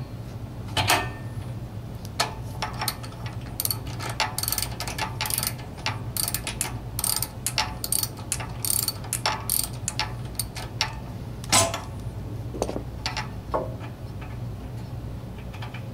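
Ratchet socket wrench clicking in short, irregular runs as its pawl skips on the back-swings, loosening and backing out a generator engine's spark plug.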